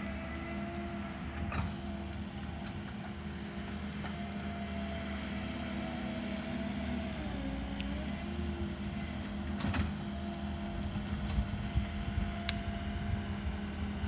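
Diesel engine of heavy land-clearing equipment running steadily, its pitch dipping briefly past the middle as it takes load and then recovering. A few sharp cracks sound over it.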